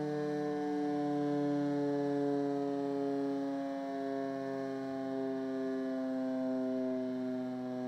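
Civil defence siren on Rouen city hall sounding a long steady wail, its pitch slowly falling.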